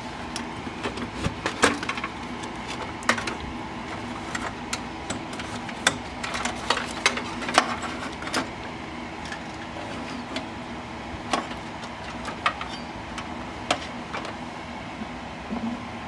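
Clicks, knocks and rattles of hands working inside a Dell 2400 desktop case: ribbon-cable and power connectors being pulled off the hard drive and the drive in its metal bracket being slid out, over a steady low hum.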